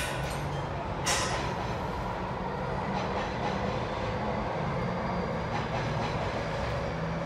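Heavy machinery engine running with a steady low hum, and a brief sharp sound about a second in.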